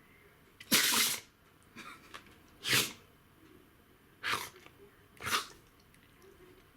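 A dog sneezing in a fit: four sharp sneezes one to two seconds apart, the first the longest, with a few fainter ones between.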